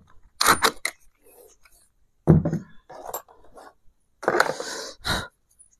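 A cordless drill and brass door hardware being handled against a wooden door: a few irregular knocks and clunks, the loudest about two seconds in, then a short scraping rustle a little after four seconds.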